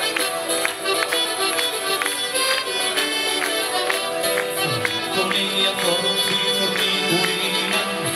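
Live tarantella played by a Calabrian folk band: strummed acoustic guitars and melody instruments over a steady, driving percussion beat.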